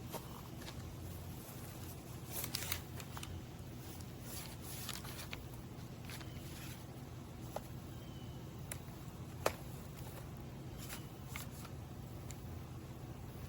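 Faint handling noises: scattered light clicks and rustles over a steady low hum, with one sharper click about nine and a half seconds in.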